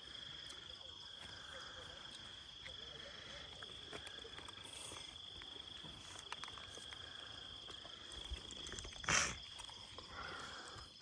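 Crickets trilling steadily on one high pitch, with a short loud burst of noise about nine seconds in.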